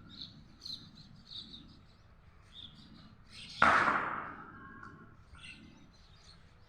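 Small birds chirping in scattered short calls from a flock. A little past the middle a single sudden loud sound cuts in and fades away over about a second.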